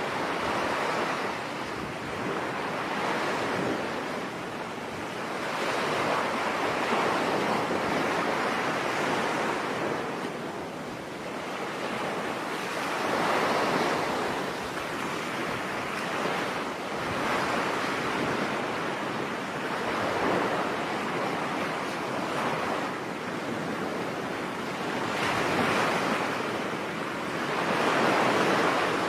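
Ocean waves breaking on a beach, a continuous wash of surf that swells and recedes every few seconds.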